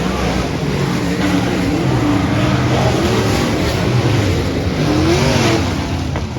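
Several dirt-track race car engines running hard, their pitches rising and falling and overlapping one another.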